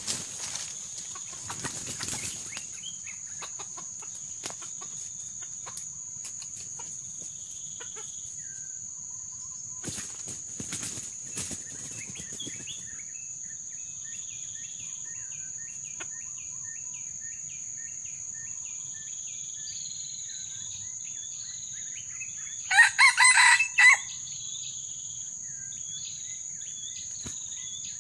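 A jungle fowl rooster crows once, loud, in four quick pulses, near the end. Under it a steady high insect whine runs throughout, with a string of short repeated bird chirps and some rustling earlier on.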